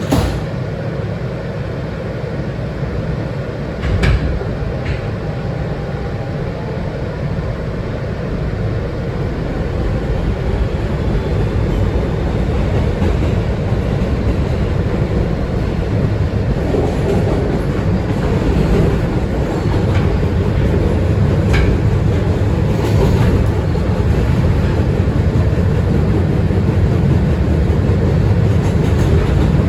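Inside an R160B subway car running along the track: a steady rumble of wheels and car that grows gradually louder. It is broken by a few sharp knocks, the loudest about four seconds in.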